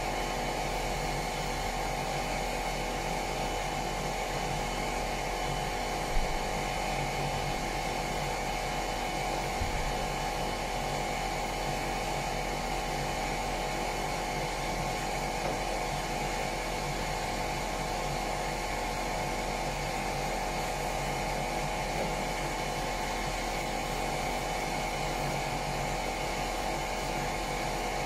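Electric power sander running steadily on the bilge of a boat's engine room, an even motor whine with the sanding hiss, and two brief knocks, one about six seconds in and one near ten seconds.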